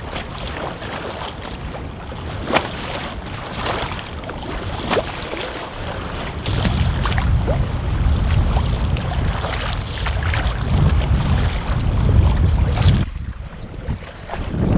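Heavy headwind noise on the microphone over choppy lake water, with small waves slapping and splashing against the hull of a Bergans Ally folding canoe and the odd paddle splash. The wind noise grows louder about halfway through and drops off suddenly near the end.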